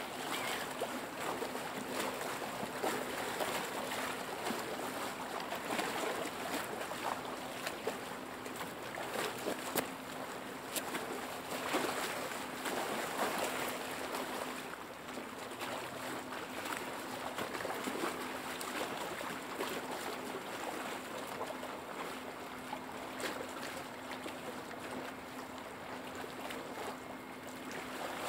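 Small lake waves lapping and splashing close by: an uneven run of little slaps and gurgles over a steady wash of water.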